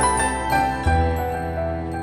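Instrumental background music with sustained notes; a new low bass note comes in just before a second in.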